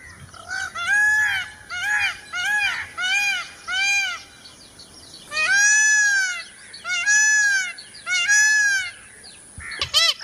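Peacock calling: a quick run of about six short, arched calls, then three longer, louder calls with short gaps between them.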